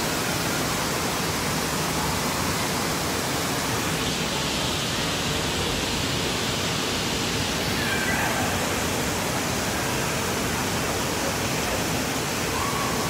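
Steady rushing water of an indoor water park's lazy river: a continuous, even noise with no breaks.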